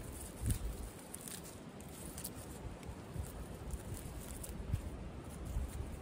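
Rustling and handling noise of a person moving close by on the forest floor, with a couple of soft thumps and a few faint clicks.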